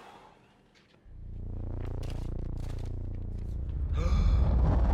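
A low, swelling dramatic music sting, the suspense cue of a film score, that starts about a second in, grows steadily louder with a rising hiss near the end, and cuts off sharply.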